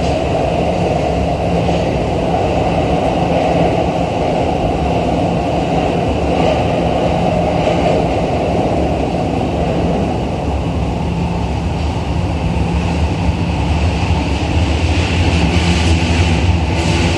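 Running noise of a Tokyo Metro 2000-series subway train heard from inside the car in the tunnel: a steady rumble of wheels on rail with a low hum, growing louder near the end.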